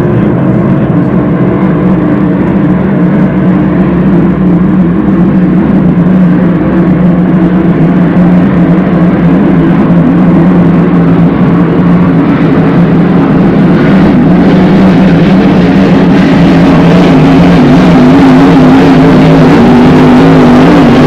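Grand Prix-class racing hydroplane engines running flat out as the boats speed past, a loud steady drone that grows slowly louder toward the end.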